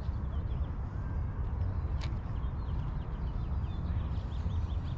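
A steady low rumble on the microphone, with faint bird chirps in the background and one sharp click about two seconds in.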